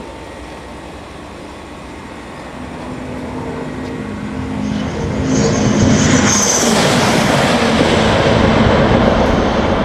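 Superconducting maglev train passing on its guideway: a rushing roar that builds from about three seconds in, with a brief high whistle around five seconds in, and stays loud over the last few seconds.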